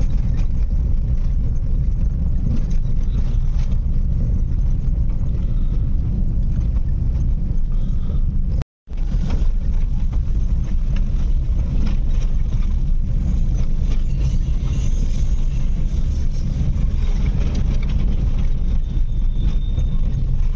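Steady low rumble of road and engine noise inside a moving car's cabin. The sound drops out for a moment about nine seconds in.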